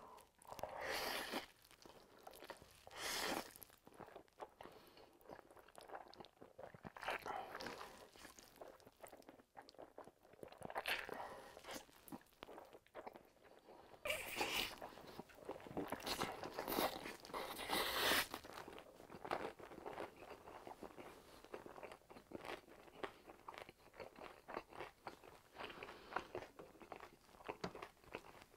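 Close-miked eating: noodles slurped in long, wet pulls and chewed, with the loudest run of slurps about halfway through and quieter chewing after it.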